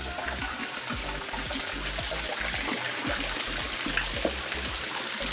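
Water from a small garden waterfall splashing and trickling steadily into a pond.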